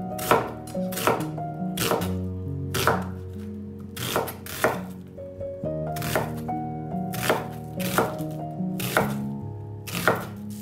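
Chef's knife slicing an onion on a bamboo cutting board: repeated sharp knocks of the blade striking the board, roughly one to two a second, over background music.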